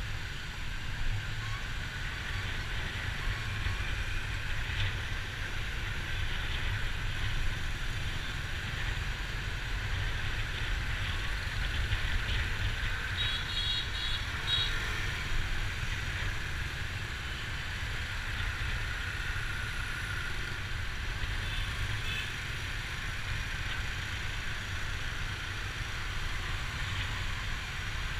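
Steady rumble of dense city motor traffic heard from a moving vehicle in the flow, with a short burst of high beeps about halfway through.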